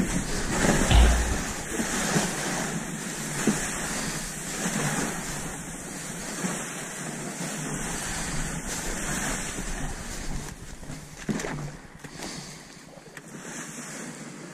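Wind buffeting the microphone, with a heavy low thump about a second in and irregular knocks and rustling from someone moving over a snowy bank; it grows quieter after about 12 seconds.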